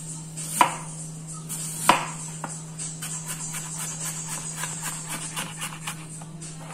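Chef's knife cutting a green apple on a plastic cutting board: two sharp knocks about half a second and two seconds in, then a quick run of light chopping taps, about four a second, as the slices are cut into sticks. A steady low hum runs underneath.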